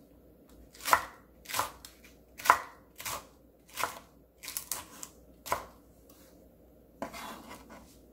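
Chef's knife chopping red chilies and green cheongyang peppers on a wooden cutting board: single knocks of the blade on the board, about eight of them at roughly two-thirds of a second apart, then a longer rasping sound near the end.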